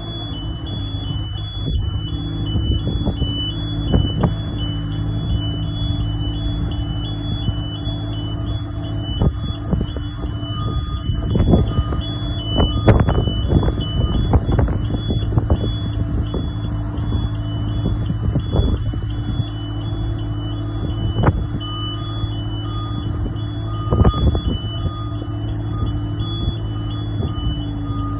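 A Skyjack SJ46JRT articulating boom lift's engine runs steadily while the boom lifts the platform. The lift's warning alarm warbles continuously between two high tones, the signal that the boom is in motion. Occasional knocks and clatters come in, most of them in a cluster around the middle.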